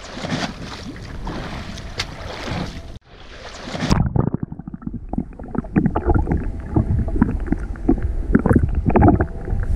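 Wind and sea-water noise at a boat's rail. After a cut comes a short rising whoosh, then muffled underwater knocking, clicking and bubbling from a camera held in the sea, louder than the first part.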